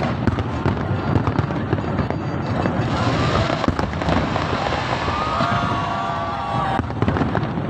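Fireworks going off in quick succession: a steady run of bangs and pops over a low rumble, with a dense crackling hiss from about three seconds in that stops suddenly near the end.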